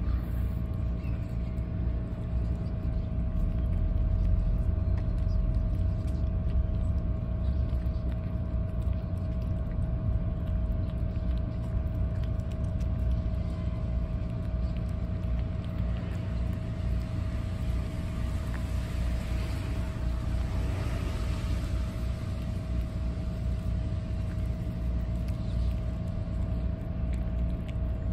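Cats chewing and lapping wet cat food and dry kibble, faint small clicks and smacks, over a steady low rumble with a constant hum; a soft hiss swells and fades about two-thirds of the way through.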